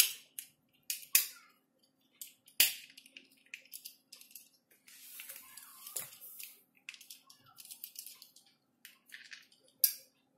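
Sharp plastic clicks and small ticks from the white plastic parts of a 20 A SPN switch being handled and pushed together, with a short scraping rustle near the middle. The loudest clicks come about once every second or few seconds as the switch parts are forced into place.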